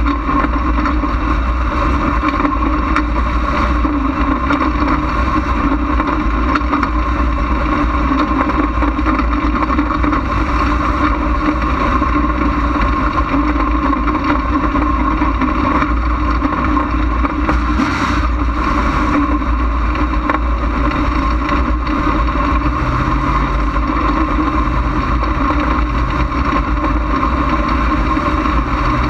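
Dirt-track stock car's engine running at a steady, even speed, heard from a camera mounted on the car's hood, with a heavy low rumble and no big revs or drops.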